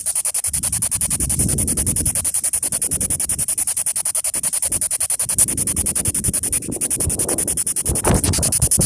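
P-SB7 spirit box sweeping through radio stations: a rapid, even, choppy static pulsing several times a second with a steady high whine, under low rumbling wind buffeting on the microphone.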